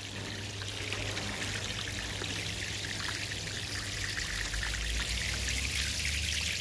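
Dirty tank water gushing steadily from the open end of a lay-flat discharge hose and splashing across stone paving, pumped up by a sludge pump from an underground water tank being cleaned out.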